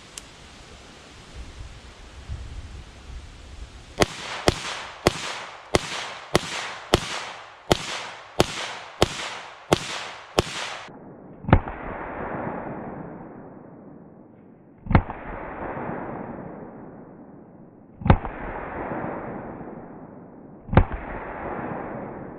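A 9mm AR-15 pistol with a 7-inch barrel fires about a dozen rapid semi-automatic shots, roughly two a second. Then come four more shots several seconds apart, each trailing off in a long, muffled decay.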